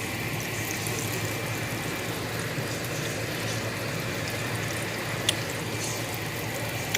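Green tomato slices frying in hot oil, a steady sizzle, with one sharp click about five seconds in.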